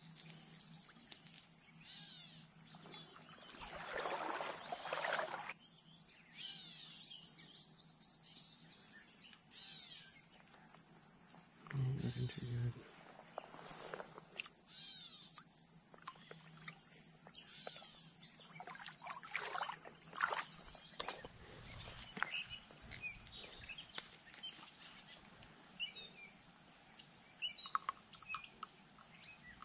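Summer streamside ambience: a steady, high-pitched insect drone that comes and goes in long stretches and fades about two-thirds of the way through, with scattered bird chirps.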